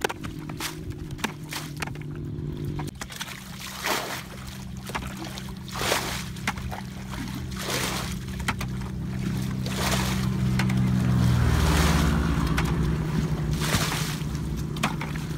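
A motor running steadily, its pitch shifting about three seconds in and again near the middle-to-end, with water sloshing and splashing.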